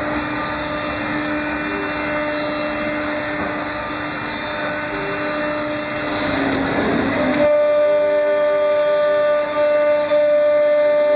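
Electric spindle motor of a CNC machine running on a variable-frequency drive: a steady whine over noise. About seven seconds in, the noise drops away suddenly and a clearer high whine with several steady tones remains.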